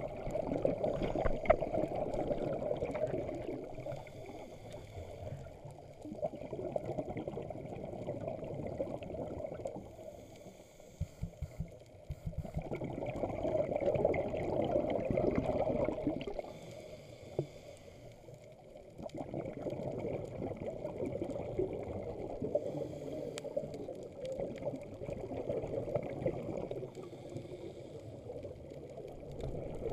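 Muffled water rushing and sloshing, heard from inside an underwater camera housing, swelling and fading every few seconds, with a few small clicks about midway through.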